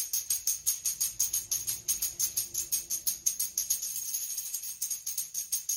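Handheld half-moon tambourine with metal jingles shaken in a fast, even rhythm, about six shakes a second, blurring briefly into a continuous jingle about four seconds in.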